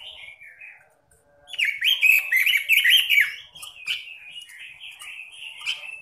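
Red-billed leiothrix (Pekin robin) singing. A soft warbling phrase and a brief pause about a second in lead into a loud run of rapid, rising-and-falling notes. Quieter continuous warbling follows.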